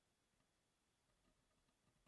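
Near silence, with only a few very faint ticks.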